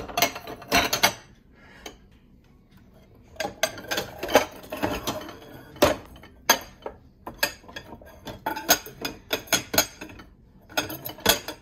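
Ceramic bowls clinking and knocking against other dishes and the dish rack as they are set and shifted into place. The clatter comes in several quick spells with short pauses between.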